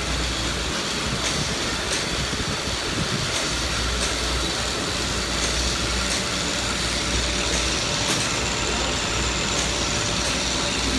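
Automatic cotton bud making machine running at speed: a steady mechanical whirr over a low hum, with a faint click about once a second.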